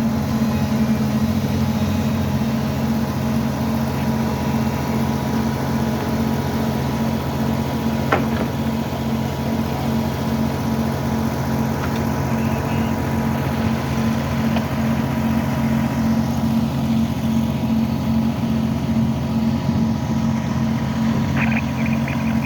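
An engine idling steadily, a constant low hum, with a single sharp click about eight seconds in and a brief high chirp near the end.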